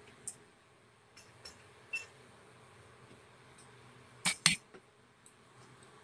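Oil heating in a wok over a gas burner: a faint steady background with a few light ticks, then a sharp double click about four and a half seconds in.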